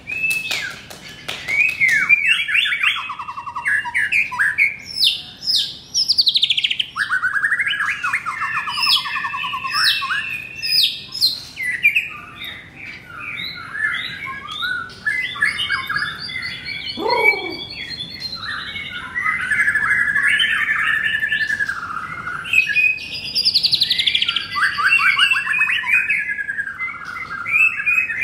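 Male white-rumped shama singing a long, varied song at a rival shama: fast trills, clear whistles and chattering phrases one after another with hardly a pause, and a falling glide about seventeen seconds in.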